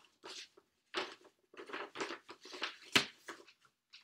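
Rustling and crinkling of vinyl record sleeves and packaging being handled, in irregular bursts, with a sharp tap about three seconds in.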